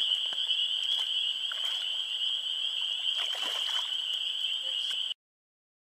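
Frog chorus: a dense, steady, high-pitched calling that cuts off suddenly about five seconds in.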